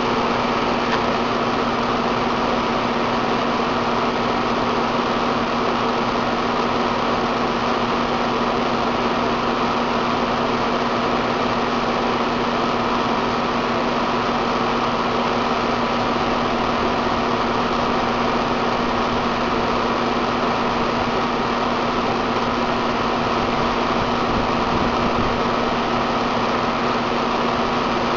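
1991 Ruud split-system air conditioner running: a steady rush of air with a constant hum and a higher whine, cutting in suddenly at the start.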